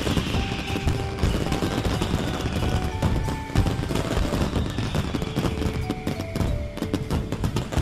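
Fireworks going off in rapid, irregular bangs and crackles, mixed over background music with a simple held-note melody.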